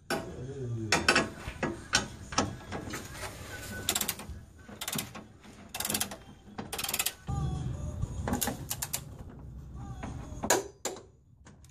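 Ratcheting torque wrench turning the tubular K-member's mounting bolts: the pawl clicks in short runs between strokes, with separate knocks of the socket and tool against the bolts. The bolts are being run down and torqued on the first pass to 45 ft-lb.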